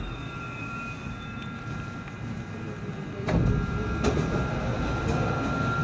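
Korail electric multiple-unit subway train running through a tunnel: a steady low rumble with a thin, steady high-pitched whine over it. The rumble gets louder about three seconds in, with two sharp clacks about a second apart.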